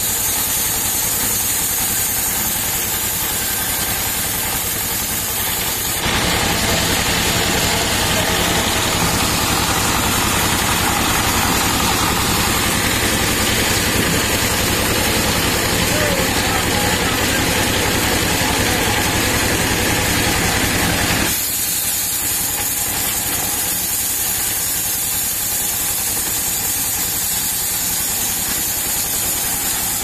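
Sawmill band saw running steadily. From about six seconds in to about twenty-one seconds in its blade is cutting through a palm log, a louder, hissing cut over the motor hum, which then drops back to the saw running free.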